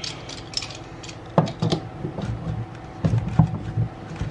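Scattered clicks and knocks of metal mould plates and bar clamps being handled and tightened around an injection mould for soft-plastic lures.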